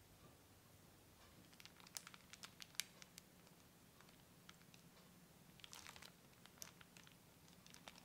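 Piping bag crinkling in quick little crackles as it is handled and squeezed to pipe thick cream cheese whipped cream. The crackles come in two clusters, around two seconds in and around six seconds in, with a last one near the end.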